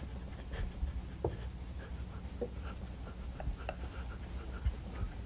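Wooden rolling pin rolling puri dough thin on a wooden board: a faint rubbing with scattered light clicks and taps.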